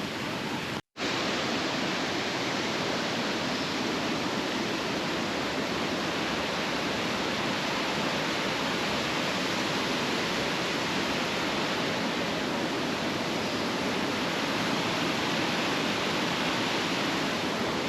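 Waterfall rushing steadily, an even wash of falling water, with a split-second break in the sound about a second in.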